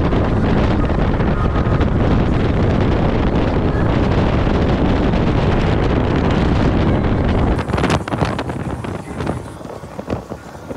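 Wind buffeting the microphone over the noise of a motorboat running fast across choppy water. About seven and a half seconds in it drops abruptly to quieter wind and water sounds.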